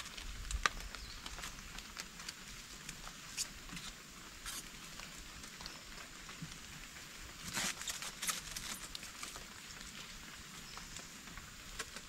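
Plastic wrap crinkling and rustling in short, scattered crackles as it is handled on a hammock-style bed frame, with a denser run of crackles a little past the middle, over a faint steady hiss.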